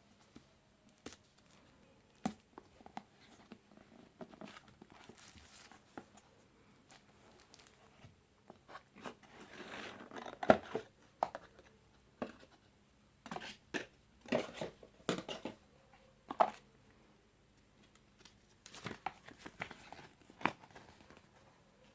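Phone box packaging being handled and opened: irregular crinkling and tearing of plastic wrap and cardboard, with scattered clicks and taps. The loudest rustling comes about halfway through.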